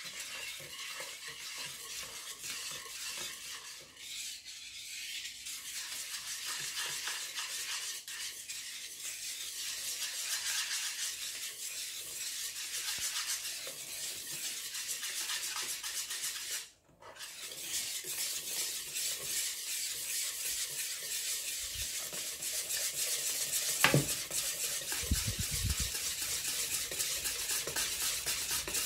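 Wire balloon whisk stirring matcha flour into wet chiffon cake batter in a bowl: fast, even scraping and swishing of the wires through the batter and against the bowl. It pauses briefly past the middle, and there is one sharp knock late on.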